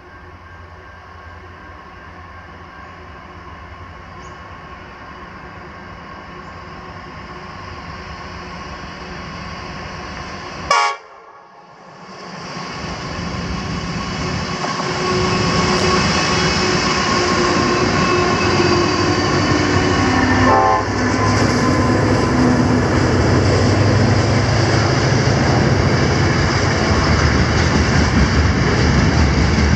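Container freight train hauled by several diesel locomotives approaching and passing close by: a steady engine rumble that grows louder, then the locomotives and wagons rolling past. A sudden loud burst about eleven seconds in is followed by a short dip.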